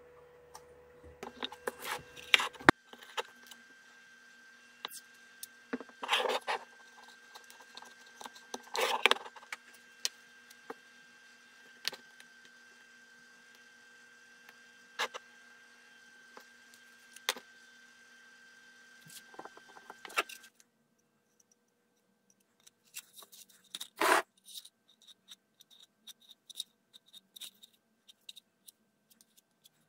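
Workbench handling noise on a model boat hull: scattered clicks, taps and short scrapes of hands and small tools on the plastic parts, over a faint steady hum that stops about two-thirds of the way in. Later, a sharp scrape as a metal spatula works polyester putty.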